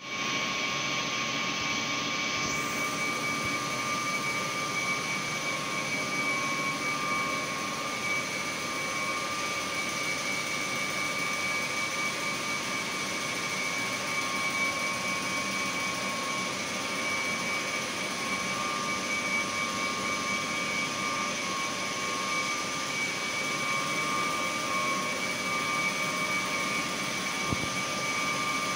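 Ammonia refrigeration compressor running steadily: an even machine rush with two steady high-pitched tones whining through it.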